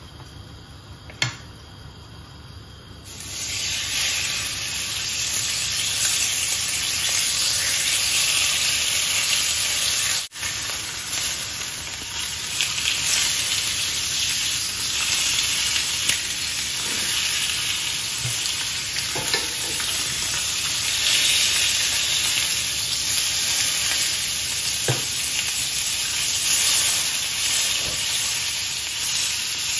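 Beef steaks sizzling loudly on a smoking-hot cast-iron ridged grill pan. The sizzle starts suddenly about three seconds in, as the meat goes on, and then stays steady, with a few light knocks from tongs and a wooden spatula on the pan.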